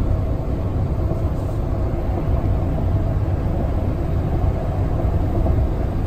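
Steady engine and tyre rumble inside a van driving at highway speed, with a faint steady hum over the low road noise.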